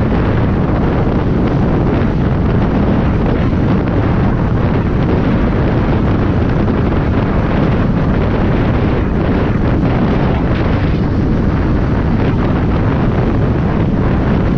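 UTV driving along a sandy dirt track, its engine and tyre noise buried under steady, heavy wind buffeting on the vehicle-mounted microphone.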